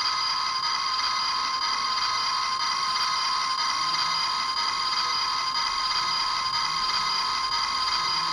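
Bandai King Joe STORAGE Custom toy's built-in speaker playing its separation-mode sound effect while the button is held: a steady electronic drone of several high tones held without change.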